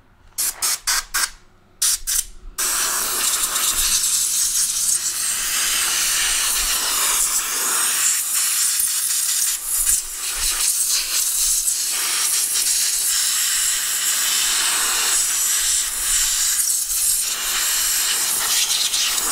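Compressed-air blow gun blowing spilled oil off a transaxle casing: several short bursts in the first two seconds or so, then one long steady blast that wavers in strength as the nozzle moves over the casing.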